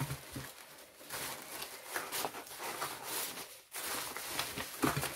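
Irregular rustling of paper and craft supplies handled on a table, with a few light knocks.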